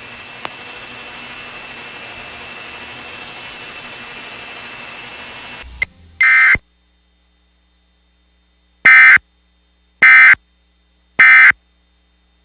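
Emergency Alert System broadcast: a steady static hiss with a faint high whine cuts off with a click after about six seconds. A short burst of EAS data tones follows, then silence, then three short, loud EAS data bursts about a second apart, the end-of-message code that closes the alert.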